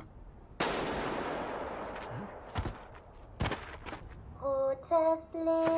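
A gunshot rings out about half a second in and fades in a long echo, followed by two more sharp shots. Near the end the giant doll's sing-song chant starts in held notes that step up and down.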